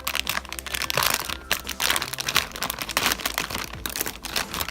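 Plastic packaging crinkling in irregular crackles as it is handled and cut open with scissors.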